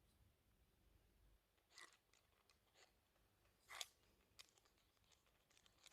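Near silence, broken by two or three brief, faint clicks and scrapes of small parts being handled.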